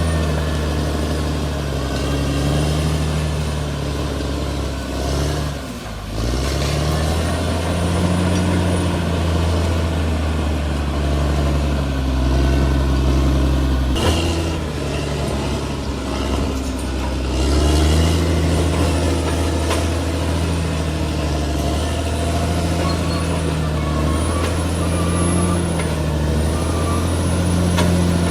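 Bulldozer's diesel engine running under varying load, its pitch rising and falling, with a brief drop about six seconds in. A single sharp knock comes about halfway through, and faint high squeaks recur near the end.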